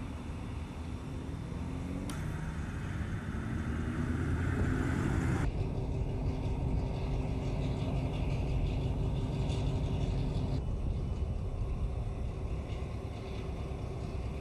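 Diesel switcher locomotive engines running at low speed as they move a Titan IV rocket on its rail transporter, a steady low drone with an engine note that rises between about two and five seconds in. The sound changes abruptly a few times.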